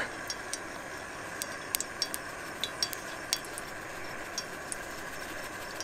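Steady hiss of cooking oil warming in a pan on a portable gas canister stove, with scattered small crackles and ticks.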